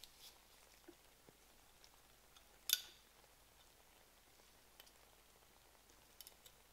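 Faint, sparse ticks and light scrapes of steel tweezers working at a rusted diecast model car body, with one sharp metal click near the middle.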